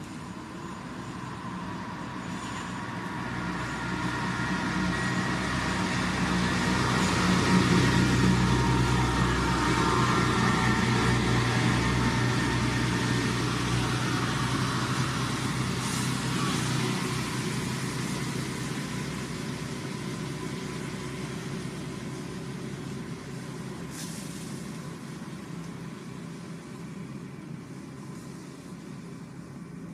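Engine noise of a passing vehicle swells to a peak about eight seconds in, then slowly fades away.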